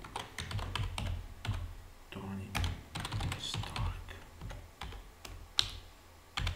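Typing on a computer keyboard: irregular clicks of keystrokes, with one sharper click about two thirds of the way through.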